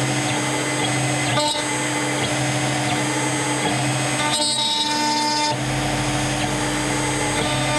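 6090 CNC router spindle running with an end-mill bit cutting wood, machining out the inside corner of a frame recess: a steady whine over the noise of the cut, which changes for about a second around the middle.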